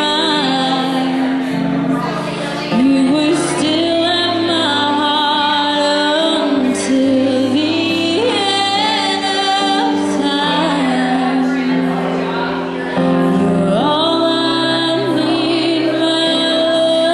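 A woman singing live to her own keyboard accompaniment, holding long notes with a slight vibrato over sustained keyboard chords.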